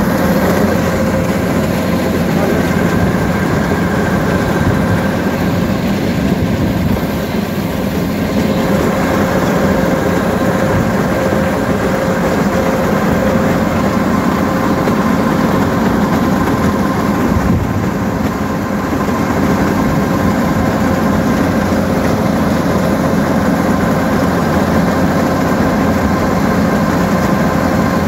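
Kubota combine harvester running steadily while its unloading auger empties paddy grain into a tractor trolley: a loud, even engine and machinery noise with a steady whine.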